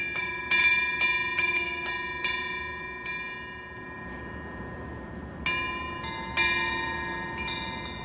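Bronze temple wind bells (pungyeong) hanging from the eaves, struck by their wind-swung clappers: a quick run of about eight clinking strikes in the first three seconds, then three or four more about five and a half seconds in. Each strike rings on with a clear metallic tone and fades slowly.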